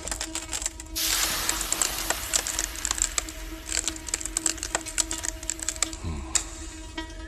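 Anime sound effect of ice freezing and cracking over a body: a dense run of sharp crackles and ticks, with a hissing rush from about a second in that fades by about three seconds. A steady low music drone runs underneath.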